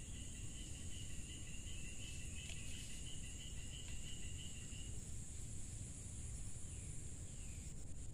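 Insects buzzing steadily at a high pitch, with a second, lower wavering trill that stops about five seconds in. A steady low rumble runs underneath.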